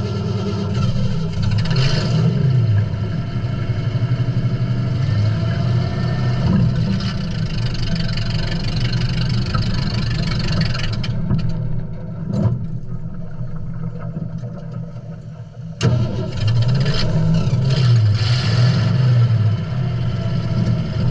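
A vehicle engine running and revving, easing off to a lower level about eleven seconds in and coming back up sharply about five seconds later.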